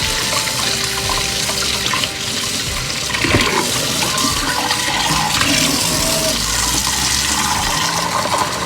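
Kitchen tap running hard into a sink, with splashing as something is rinsed under the stream. There is a brief knock about a third of the way in, and the flow cuts off at the very end.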